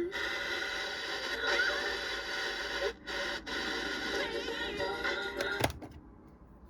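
Music playing from the radio of a Wesco Wallace & Gromit radio alarm clock through its small built-in speaker. It drops out briefly twice about three seconds in, then stops with a click about a second before the end.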